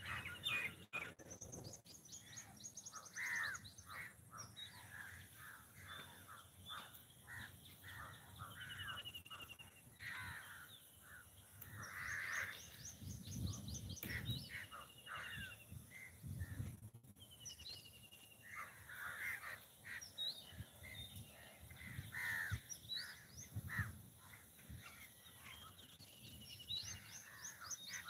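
Birds calling throughout: crows cawing among quick series of high chirps and short trills from smaller birds.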